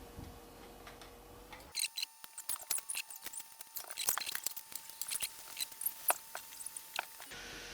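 Small plastic Lego-compatible building bricks clicking as they are handled. A quick, irregular run of light clicks starts about two seconds in and stops just before the end.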